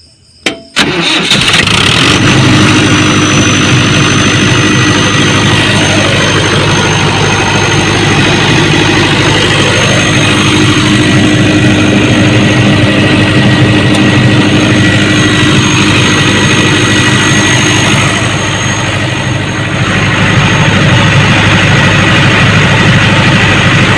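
Diesel generator engine starting about a second in, then running steadily at a constant speed.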